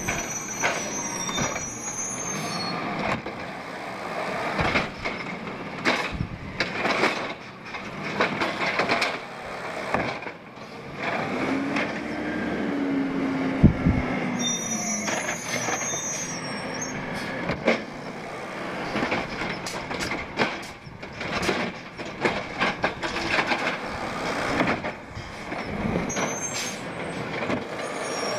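Peterbilt 320 natural-gas automated side-loader garbage truck at work: the engine running and revving up and back down, brakes squealing briefly as it stops, and repeated metallic clanks and bangs from the side arm and carts, the loudest knock about halfway through.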